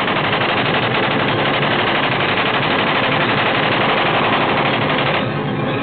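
Aircraft machine guns firing one long, unbroken, very rapid burst, which stops about five seconds in.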